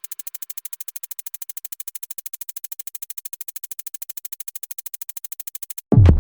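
Background electronic music: a thin synth note pulsing rapidly, about ten times a second, then a loud bass-heavy drum-machine beat cutting in just before the end.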